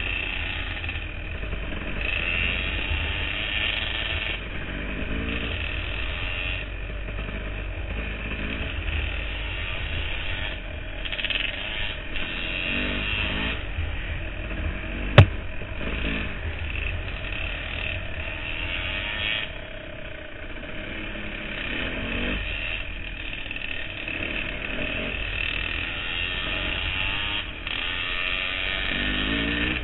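Dirt bike engine running while riding, heard from a camera mounted on the bike, its revs rising and falling again and again with the throttle. A single sharp click or knock comes about halfway through.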